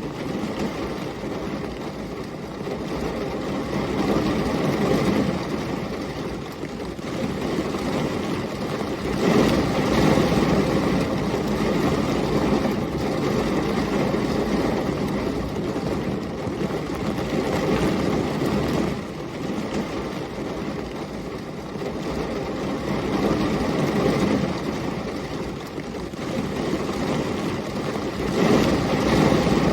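Continuous low, rumbling masking noise that swells and eases every few seconds.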